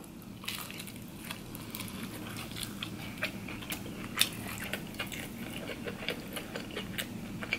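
Close-miked biting and chewing of shrimp, a string of small wet mouth clicks and crunches coming irregularly, with one louder click about four seconds in.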